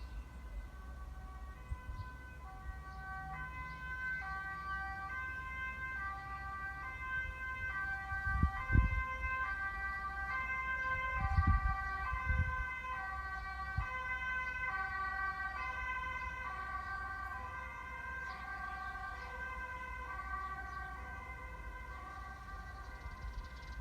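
Distant two-tone emergency-vehicle siren alternating between a high and a low note, growing louder toward the middle and then fading. Low rumbles of wind on the microphone about a third and halfway through.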